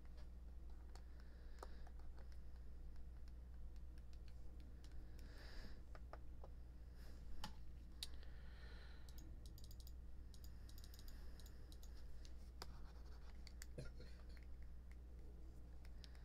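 Faint, irregular clicks and taps of a computer mouse and keyboard as numbers are entered into a calculator, over a steady low electrical hum.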